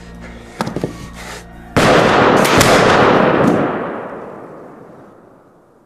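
Flintlock pistol gunfire: a few sharp clicks, then a sudden loud blast about two seconds in, several reports running together, with a long echoing tail that dies away over about three seconds.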